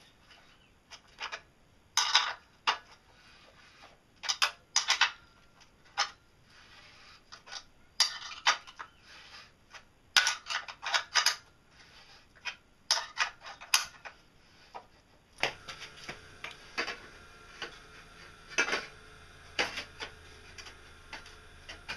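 Steel parts and a hand wrench clinking and clanking as a bolt is worked and steel tubes are handled: irregular sharp metallic clicks, some in quick pairs. A faint steady hum comes in about two-thirds of the way through.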